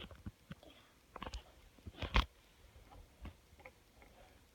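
Faint, irregular clicks and ticks with no steady rhythm, a louder pair about a second in and another near the middle.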